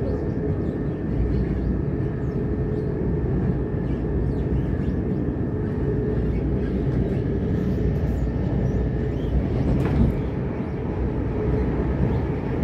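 Steady rumble and rail noise of a c2c electric train running at speed, heard from inside the carriage, with a steady hum under it. A single sharp knock comes about ten seconds in.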